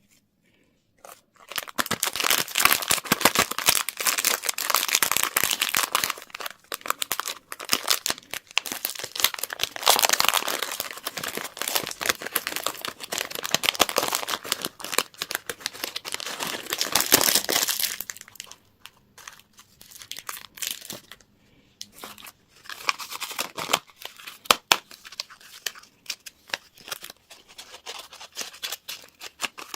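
Candy wrapper packaging being torn open and crinkled by hand. Dense crackling crinkles run for the first two-thirds, then turn into sparser rustles.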